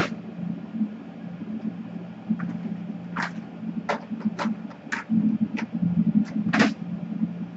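A series of sharp light clicks, about seven, spaced irregularly over the second half, over a steady low hum.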